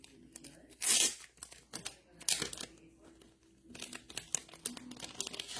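Packaging being handled: crinkling and tearing of wrapper material with scattered clicks, and two louder tears, about one second and two and a half seconds in.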